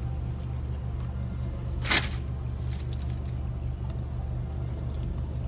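A man chewing a bite of soft pretzel with icing, over the steady low hum of the car's cabin, with one short hiss about two seconds in.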